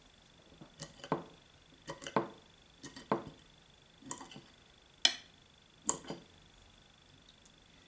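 Eating sounds at a table: a string of short clicks and knocks, roughly one a second, with a faint steady high tone underneath.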